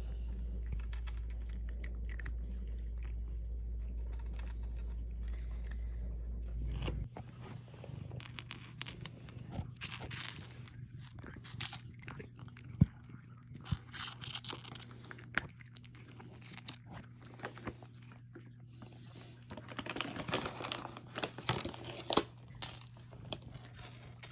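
A cat chewing and crunching, in irregular crunches and clicks with a few sharper snaps. A steady low hum runs under the first several seconds and cuts off suddenly.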